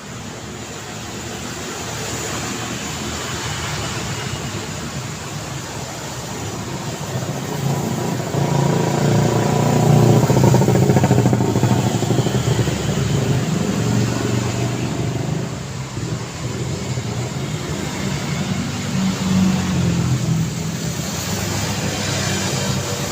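City street traffic: cars driving past. One vehicle passes close, loudest about ten seconds in, its engine and tyres swelling and then fading.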